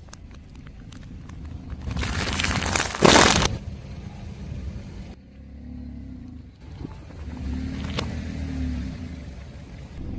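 A slow-rolling car tyre crushing an object with a crackling crunch that builds about two seconds in and is loudest just after three seconds, over the low rumble of the car's engine. A single sharp snap comes near the end.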